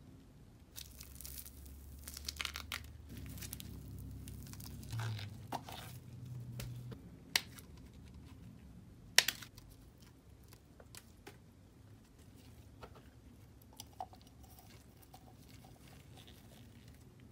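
Clear plastic film being peeled and torn off a freshly cast resin vase, crinkling, with scattered sharp clicks; the two loudest clicks come about seven and nine seconds in.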